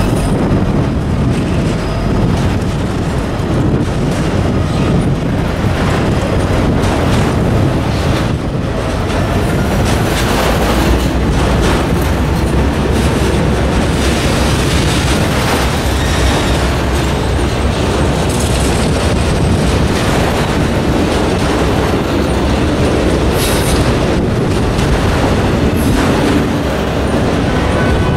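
Freight train of autorack cars rolling past close by: a steady, loud rumble of steel wheels on the rails, with occasional sharp clacks.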